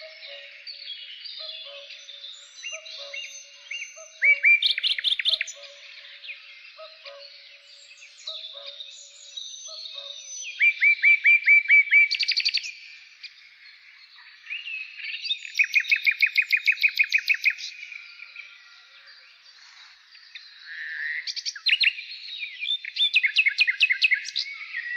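Songbird singing: four loud phrases of rapid trilled notes, each lasting one to three seconds, with quieter twittering between them.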